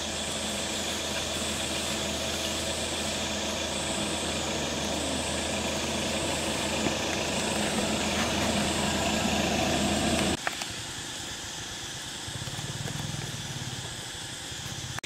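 Steady outdoor background noise with a low hum and a high buzz that pulses about once a second. It changes abruptly to a quieter background about ten seconds in.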